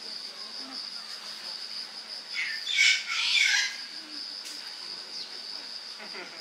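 Steady, high-pitched insect trill, with a short bird call about two and a half seconds in that is the loudest sound.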